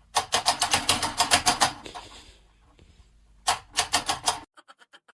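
A rapid run of sharp taps or clicks, about seven a second, lasting under two seconds, then a second shorter run a little later.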